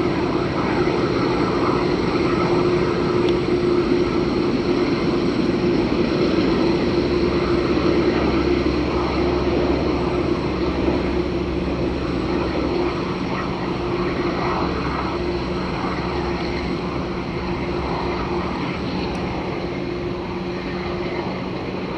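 Jet engines of a Boeing 747-8F freighter running on the ground: a steady jet roar with a constant humming tone, slowly growing fainter over the second half.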